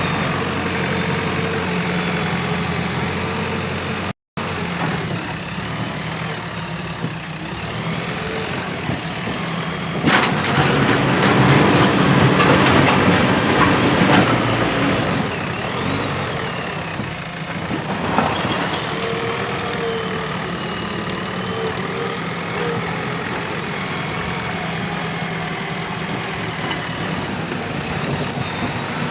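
JCB 3DX Plus backhoe loader's diesel engine running steadily. For a few seconds about a third of the way in it gets louder and rougher, with added noise, as the machine works. The sound cuts out completely for a moment about four seconds in.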